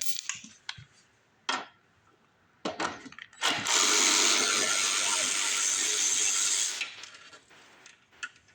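Ratchet wrench turning a long Allen bit socket on a bolt: a few single clicks, then about three seconds of fast, continuous ratcheting that stops suddenly.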